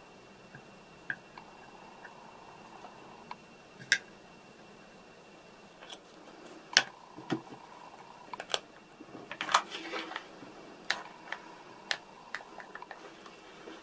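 Small plastic pieces being handled and set down on a wooden workbench: scattered light clicks and taps, with a short flurry of them near the middle.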